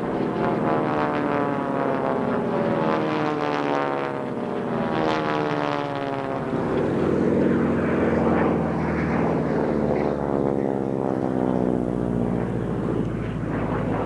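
A North American Harvard's Pratt & Whitney R-1340 Wasp radial engine and propeller droning as the aircraft flies overhead, the pitch sliding steadily downward as it passes, loudest about halfway through.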